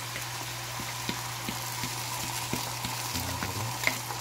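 Beaten egg sizzling as it fries in an oiled rectangular rolled-omelette pan, with small clicks of the utensils against the pan and one sharper clink near the end. A steady low hum runs underneath.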